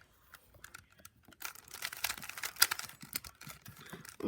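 Plastic Rubik's cube being turned quickly, its layers clicking in irregular runs; sparse at first, then faster and louder from about a second and a half in.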